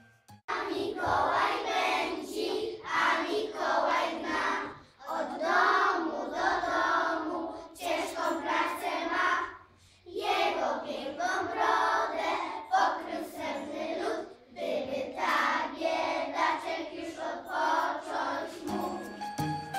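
A group of children singing a song together, in phrases broken by short pauses about five, ten and fifteen seconds in.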